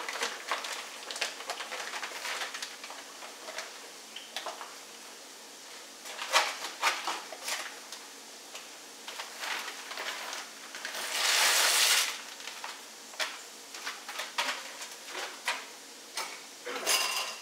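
Plastic bag of bowtie pasta crinkling and rustling as it is opened and handled, with scattered clicks of handling. About halfway there is a louder rush of noise lasting about a second, and another short burst near the end.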